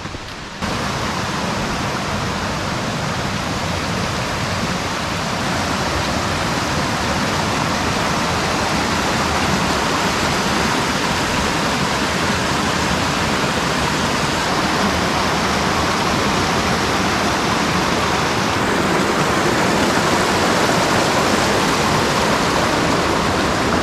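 Mountain stream rushing over boulders and small cascades: a steady, dense water rush that comes in suddenly about half a second in.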